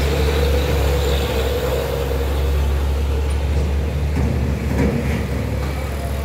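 Heavy three-axle dump truck's diesel engine pulling hard up a steep hairpin: a steady low drone with a whine that fades after about three seconds as cars and a motorcycle follow through the bend.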